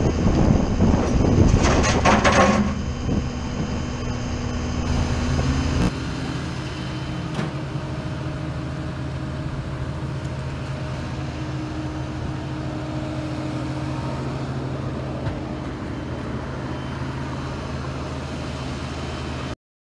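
Vehicle engine running steadily, with loud clattering over it for the first few seconds, then a steady low engine idle; the sound cuts off abruptly near the end.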